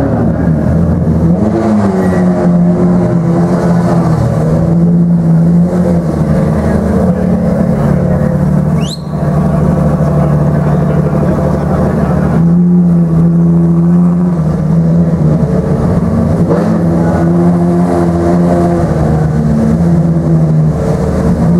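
Ferrari FXX K's V12 engine idling steadily, its note wavering slightly up and down, with a brief dip about nine seconds in.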